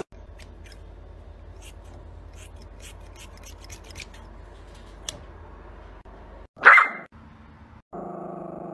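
Small scissors snipping the ear hair of a Yorkshire terrier: faint, sharp snips over a low steady hum. About two-thirds of the way in the terrier barks once, and near the end it gives a steady, drawn-out growl.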